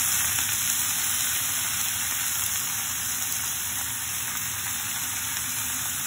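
Hot oil sizzling steadily in a frying pan as freshly washed, still-wet spinach leaves are piled onto fried vegetables; the sizzle eases slightly as it goes on.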